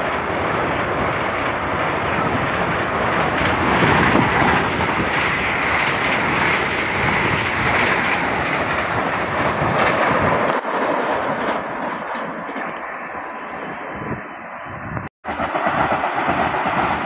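Vande Bharat electric multiple-unit express passing close at full speed: a steady loud rush of wheels on rail and air. About fifteen seconds in the sound breaks off for an instant and resumes with another pass of the train.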